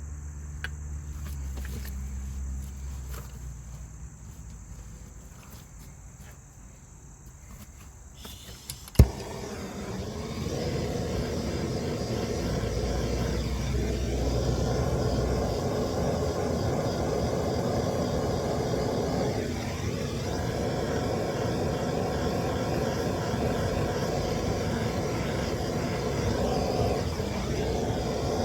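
A sharp knock about nine seconds in, then an engine starts up and runs steadily, its pitch dipping briefly three times as if taking load.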